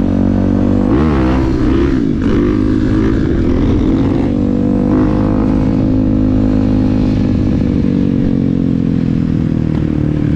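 Honda Tornado single-cylinder engine, built out to 420 cc, running hard under load while riding. The pitch dips briefly at gear shifts about a second in and again near five seconds, then rises slowly through a long steady pull.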